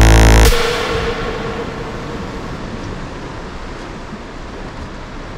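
Electronic dance music cuts off about half a second in and dies away, leaving steady wind and sea noise around a drifting boat.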